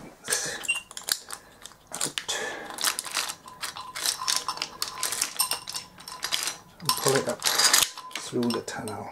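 Steel engine parts clinking and rattling against an aluminium motorcycle engine case as they are handled, including a loose steel roller chain being lifted off. The clinks are irregular and come thick throughout.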